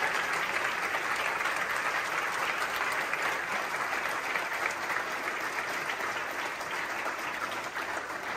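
An audience applauding with many hands clapping steadily, easing off a little near the end.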